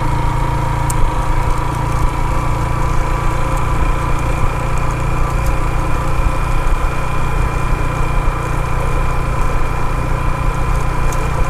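Motorcycle engine running steadily while riding along, a low rumble with a steady high whine over it.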